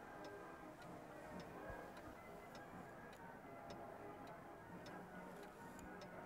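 Clock ticking faintly and evenly, about two ticks a second, over soft steady music.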